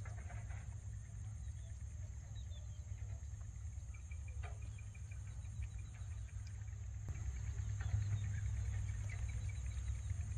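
Outdoor ambience: a low rumble of wind on the microphone, with faint bird chirps and a short trill, over a steady high insect buzz.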